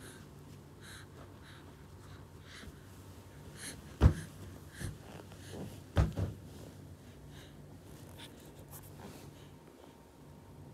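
Quiet small-room tone with a steady low hum and faint soft breathing-like sounds, broken by two sharp knocks about four and six seconds in.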